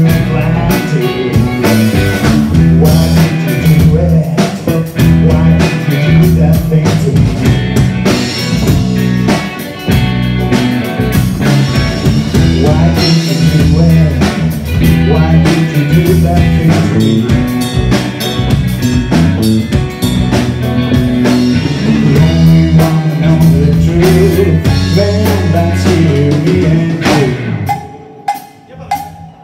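A live rock band playing through amplifiers: electric guitar, bass guitar and drum kit, with some singing. About two seconds before the end the full band drops away, leaving a quieter held note and a few scattered hits.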